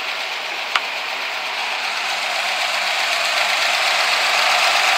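1988 Mustang GT's 5.0 L (302) small-block Ford V8 idling smoothly, a steady mechanical whir with a ticking edge that grows gradually louder. A single short click comes about a second in.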